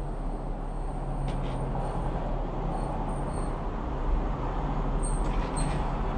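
A station lift arriving: a steady low mechanical rumble with a hum, and two short high beeps about five seconds in as its stainless-steel doors begin to slide open.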